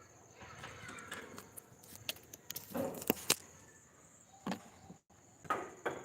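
Scattered knocks and sharp clicks of construction work, a few in the middle and a couple of dull thuds near the end.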